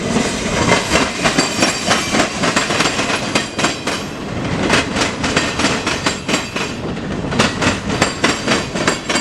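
CSX local freight train rolling by, its wheels clacking over the track with a steady run of sharp, uneven clicks above a continuous rumble.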